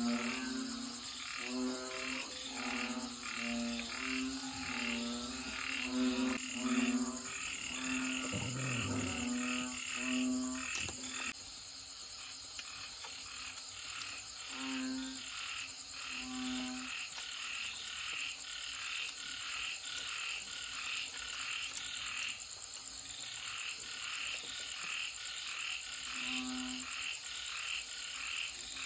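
Frogs croaking in a chorus, calls repeating evenly a couple of times a second. A deeper croak repeats steadily through the first ten seconds or so, then comes only a few times more. A steady high insect drone runs underneath.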